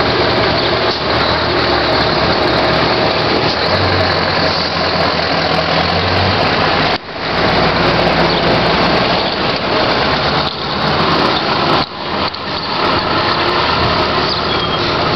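Scania 144L 530's 14-litre V8 diesel running as the truck pulls away and drives off, its note growing stronger for a couple of seconds before easing. The sound drops out briefly twice along the way.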